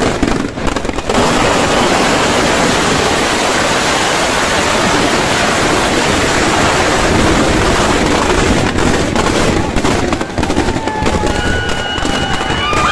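Firecrackers packed inside a burning Ravan effigy going off: a few separate bangs, then a dense, continuous crackling barrage. Near the end the crackle thins and steady whistling tones join it.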